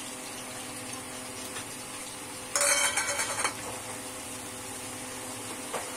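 Wooden spatula stirring chopped tomatoes and chicken in a granite-coated nonstick pot: about a second of scraping and clatter near the middle, over a faint steady hum.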